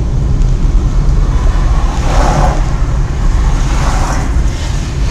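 Loud, steady low rumble of a moving car with wind buffeting the dash-cam microphone, swelling briefly twice, about two and four seconds in.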